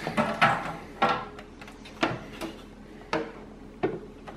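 Plastic side panel of a De'Longhi Perfecta espresso machine being fitted onto its frame: a handful of sharp, irregular plastic knocks and clicks as the panel's hooks are worked into the slots.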